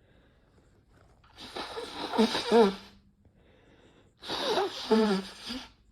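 Two sneezes about three seconds apart, each a breathy build-up ending in a loud voiced burst that falls in pitch, set off by Chhinkni snuff.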